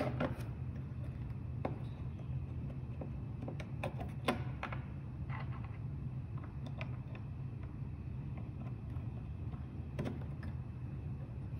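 Scattered small clicks and taps as a stepper driver module is pulled out of an Arduino CNC shield's header pins and another pressed in, with a plug pulled at the start, over a steady low hum.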